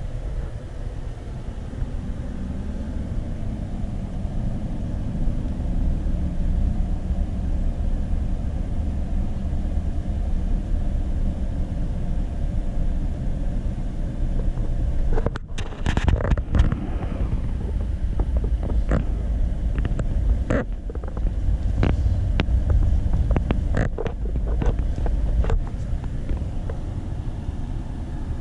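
A car driving, heard from inside the cabin as a steady low rumble of engine and road noise. From about halfway through, a scattered run of sharp clicks and knocks comes over the rumble.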